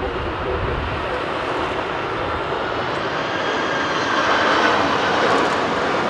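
Boeing 767-300ER twin-engine jet on final approach passing close overhead: steady jet engine noise with a faint rising whine, growing louder about four seconds in.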